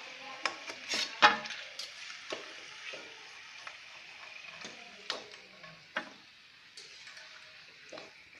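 Hot oil sizzling faintly in a metal wok as fried namak pare are scooped out with a perforated metal skimmer, with a series of sharp metal clinks and scrapes from the skimmer, the loudest about a second in.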